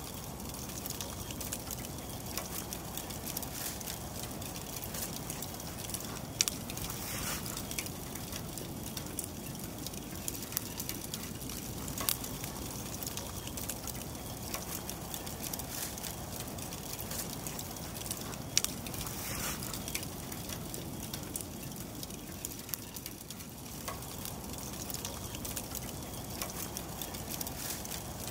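Charcoal fire burning in a grill: a steady soft hiss with frequent small crackles and pops, and a few louder pops about six, twelve and eighteen seconds in.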